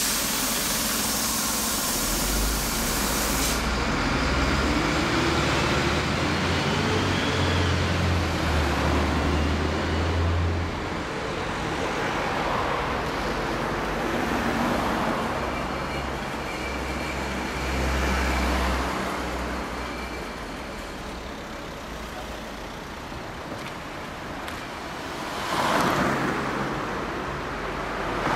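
Street traffic: cars driving past one after another, engine rumble and tyre noise swelling and fading as each one passes. A high hiss runs through the first few seconds, and another car passes loudly near the end.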